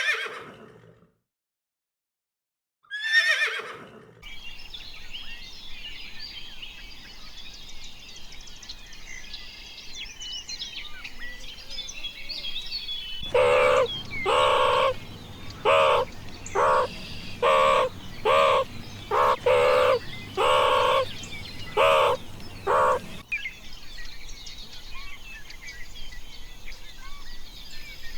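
A horse whinnies, ending right at the start and again about 3 seconds in, each call falling in pitch. Small birds then chirp in the background. From about 13 to 23 seconds in, another animal gives about a dozen loud calls in quick succession.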